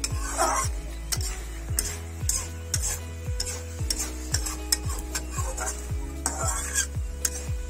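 Metal spatula stirring and scraping spinach saag and vegetables around an aluminium kadai, with repeated short scrapes and clinks against the pan. A steady drum beat of background music runs underneath.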